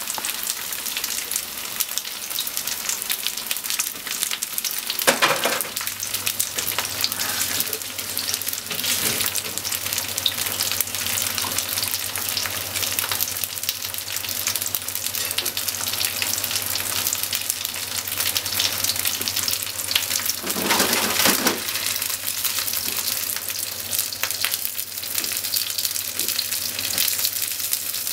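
Cubes of thick deep-fried tofu (atsuage) sizzling in hot oil in a frying pan, a dense steady crackle. The sizzle swells briefly twice, about five seconds in and again about twenty-one seconds in, and a low steady hum comes in around five seconds and stays.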